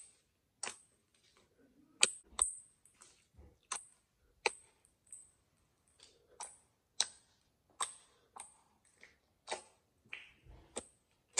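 Clear homemade no-glue slime being poked and pressed by fingers, making sharp, crisp sticky clicks and pops at an irregular pace of a little more than one a second.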